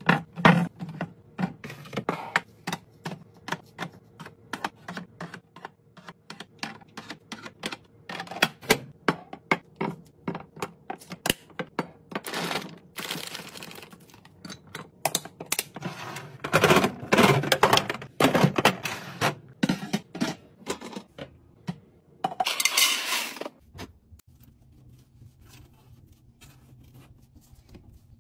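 Fridge restocking: plastic containers, bottles and jars clicking and knocking as they are set down and arranged, in a quick run of taps. A few longer rustling, hissing stretches come in the middle. Near the end it drops to a faint low hum.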